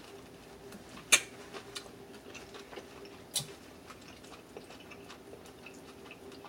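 Close eating sounds: chewing and lip smacks with small clicks, and two sharper snaps, one about a second in and one a little past three seconds, as a boiled shrimp is eaten and its shell is peeled by hand.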